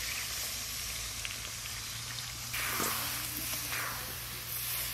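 Water poured into a hot kadai of fried, spiced goat ribs, hissing and sizzling steadily as it hits the pan, with a few faint ticks of the ladle near the middle.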